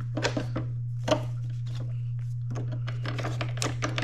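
Light metal clicks and knocks as a SHAD pannier bracket is worked by hand onto its mounting bolt and bushing, with a cluster of quick clicks near the end. A steady low hum runs underneath.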